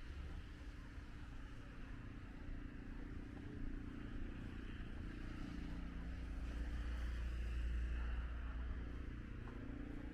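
City street traffic: a vehicle's engine rumble grows louder to a peak about three-quarters of the way through, then eases off, over a steady hiss.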